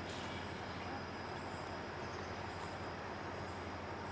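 CSX diesel locomotive approaching slowly, its engine a steady low rumble. Faint high chirps repeat roughly once a second over it.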